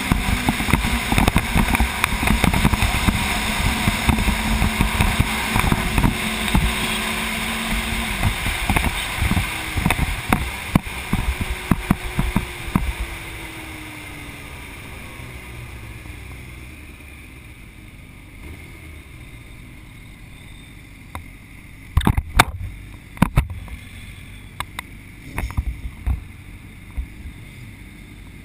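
Sport motorcycle engine at speed under heavy wind noise on the bike-mounted microphone, its pitch falling as the bike slows over the first dozen seconds, then running much more quietly. A few sharp knocks come about two-thirds of the way through.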